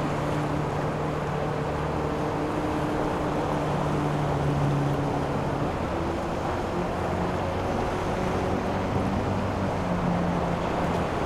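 Boat engines running, their hum shifting in pitch about halfway through as the boats change speed, over a steady rush of wind and water.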